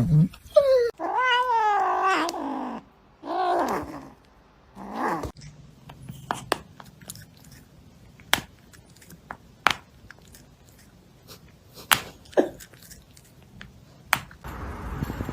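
A cat yowling: one long wavering call that falls in pitch, then two shorter calls, followed by scattered light clicks and taps.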